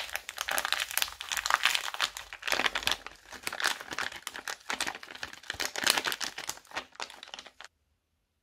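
Thin clear plastic bags crinkling and crackling as they are squeezed and shaken out by hand. The sound is dense and irregular and cuts off suddenly near the end.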